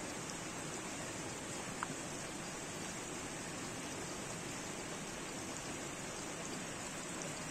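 A steady, even rushing noise, with one light click about two seconds in.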